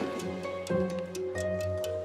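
Instrumental music: held melodic notes over a low pulse, with quick light ticks of small percussion.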